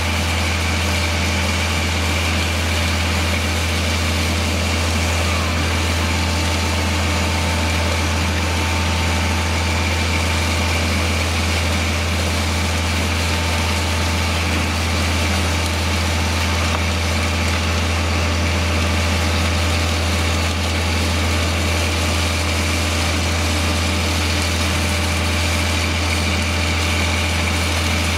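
Concrete pump truck's diesel engine running steadily, with a constant low hum and no change in speed.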